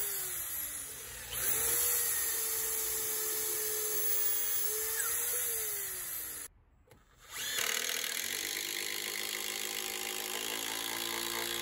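Corded electric drill driving a lag bolt into a wooden workbench rail: its pitch falls as it slows near the start, then it runs steadily for about four seconds and slows to a stop again. After a short break, a battery-powered drill runs steadily at the bolt.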